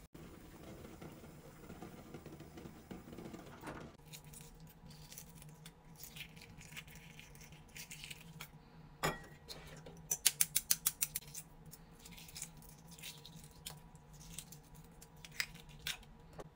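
Hard-boiled eggshells being cracked and peeled by hand, with crackling and crinkling of shell. There is one sharp tap about nine seconds in, then a quick run of about eight sharp taps a second or so later.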